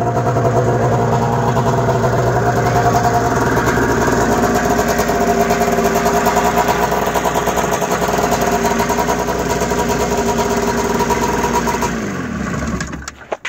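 Arctic Cat 500cc two-stroke twin snowmobile engine with a freshly rebuilt top end, running steadily. About twelve seconds in it is shut off and runs down to a stop.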